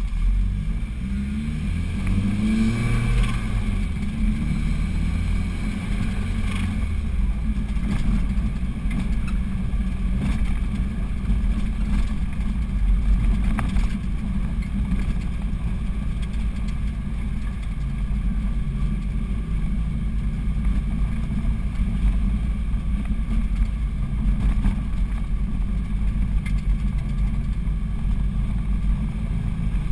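A car's engine running steadily as heard from inside the cabin while driving, a low rumble; its pitch rises as it revs up a second or so in.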